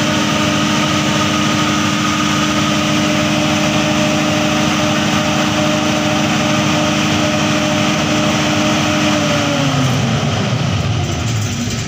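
100 kVA diesel generator set engine running steadily at about 1,500 rpm through its cool-down after Stop is pressed. About ten seconds in the fuel is cut and the engine winds down, its pitch falling.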